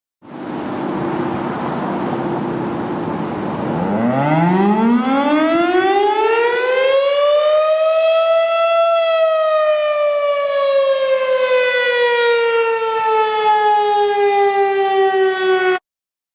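Tornado warning siren starting up. After a few seconds of noise its tone rises steeply for about five seconds, then slowly falls, and it cuts off suddenly near the end.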